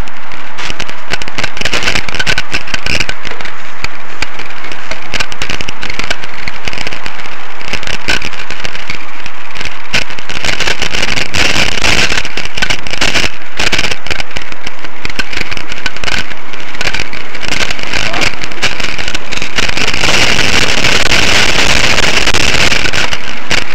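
Bicycle-mounted camera rattling and knocking over a constant rushing noise as the bike rides along the path, very loud throughout. The noise grows hissier near the end.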